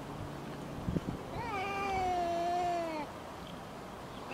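Domestic cat yowling once, a long drawn-out wail of about a second and a half that rises briefly and then slowly falls: an aggressive warning yowl in a face-off between two cats.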